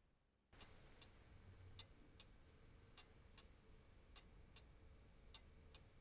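Faint, steady ticking of a small mantel clock, about two and a half ticks a second, starting after a brief moment of dead silence.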